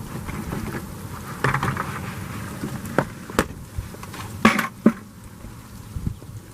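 Asphalt-based sound-deadening mat cracking as spread dry ice freezes it: a faint continuous crackle with several sharp cracks, the loudest two close together past the middle.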